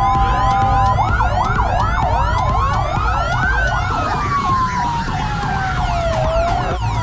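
Several vehicle sirens sounding together over a low engine rumble: a steady two-note tone cuts off about a second in, giving way to a fast warbling yelp, while another siren wails, gliding slowly up and then down.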